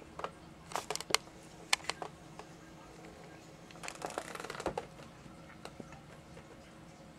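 Computer mouse being clicked: several sharp clicks in the first two seconds, then a quick rattle of scroll-wheel ticks about four seconds in, over a faint steady hum.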